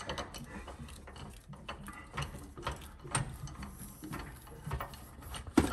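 18-inch ratchet with a 1-1/16-inch (27 mm) socket clicking in quick, uneven runs as it is swung back and forth, unscrewing a water heater's anode rod from the tank top.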